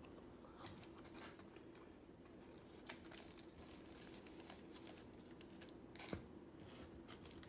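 Near silence, with faint rustling and a couple of soft clicks as sealed foil trading-card packs are picked up and handled by hand. The clearest click comes about six seconds in.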